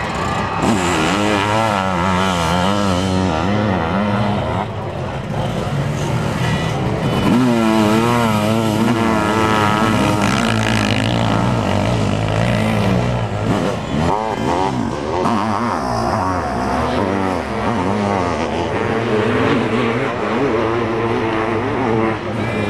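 Sidecarcross racing outfits' motorcycle engines revving and easing off as they race past, the pitch wobbling quickly up and down with the throttle. Several engines overlap, one rising and falling over another.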